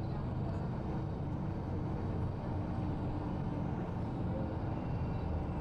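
A bus moving through city traffic, heard from inside: a steady low rumble of engine and road noise.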